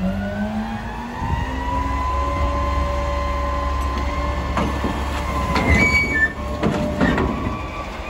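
Garbage truck's engine held revved with a steady hydraulic whine as the Curotto-Can's automated arm lifts a trash cart. From about halfway in, a few seconds of knocking and clattering as the cart is tipped and shaken out into the can.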